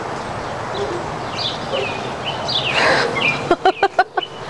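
Songbirds chirping in short calls over steady outdoor background noise. Near the end a door gives a rapid run of five or six sharp, squeaky clacks as it is pushed open.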